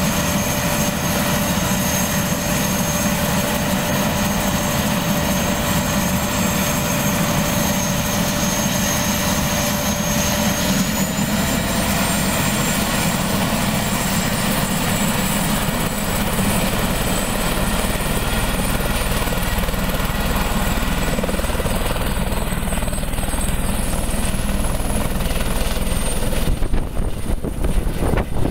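Eurocopter EC130 helicopter running with its rotor turning on the ground: a steady turbine whine over rotor noise. The whine steps up in pitch about ten seconds in, and near the end the sound turns louder and rougher as the helicopter lifts off.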